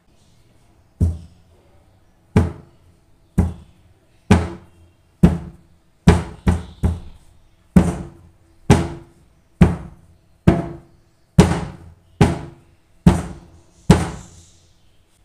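Glass baking dish full of brownie batter rapped down on the counter again and again, about sixteen sharp thuds roughly a second apart, to knock the air bubbles out of the batter and level it.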